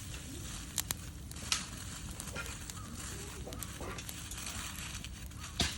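Fallen leaves burning in a fire-pit stand, crackling with a few sharp snaps, about a second in, a second and a half in and near the end, over a steady low rumble.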